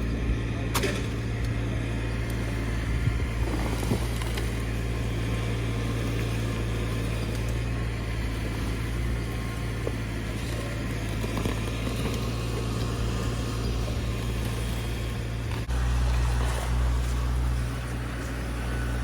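A motor engine running steadily at low speed, with a few sharp knocks near the start; the engine note shifts suddenly about 16 seconds in.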